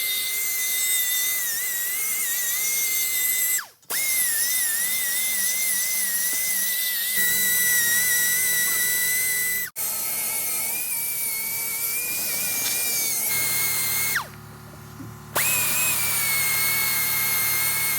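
Electric drill-type power tool running at a steady high whine while cleaning a part, easing off briefly about fourteen seconds in and then running again.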